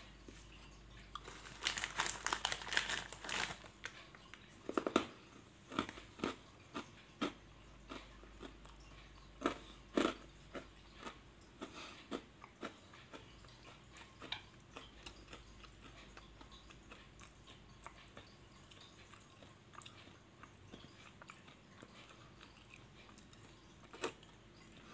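Faint, irregular clicks and crunching sounds, densest a couple of seconds in and thinning out after about fourteen seconds, over a steady low hum.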